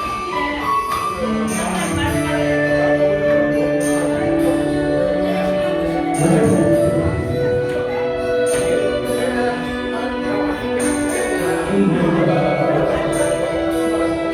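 Music with held instrumental notes and jingling percussion strokes.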